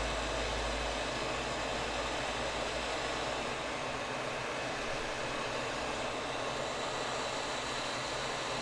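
Hot air rework gun blowing a steady hiss of hot air onto a circuit board, reflowing the solder under a chip. A low hum underneath fades out about a second in.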